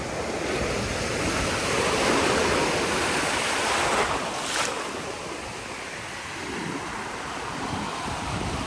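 Ocean surf washing around, swelling louder for a couple of seconds near the middle as a wave breaks, with wind buffeting the microphone.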